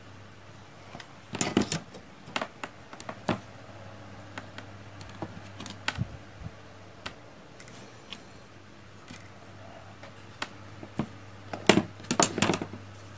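Scattered clicks and taps of a plastic solderless breadboard and small hand tools being handled on a cutting mat, with a cluster of clicks near the start and a denser one near the end, over a faint steady hum.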